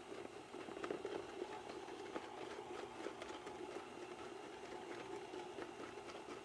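KitchenAid stand mixer running its dicer attachment: a steady motor hum with irregular light clicks as onion chunks are dropped in and cut into dice.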